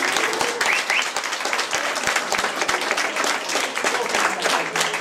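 A small audience applauding, a dense patter of hand claps at a steady level.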